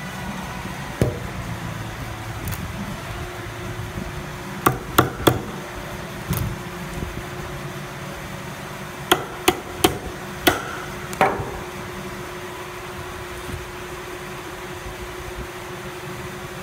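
Hammer blows on the metal handle bracket of a wooden pallet toolbox: sharp strikes in short runs, three quick ones and later four, with single blows between. A faint steady low tone hangs on after the last blow.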